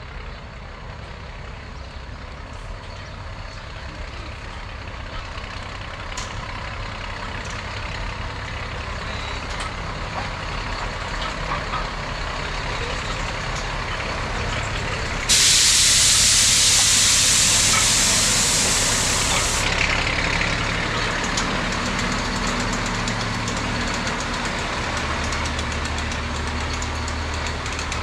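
Heritage railway train with a steady low engine rumble that slowly grows louder. About 15 seconds in comes a sudden loud hiss of released pressure, lasting about four seconds before it fades back.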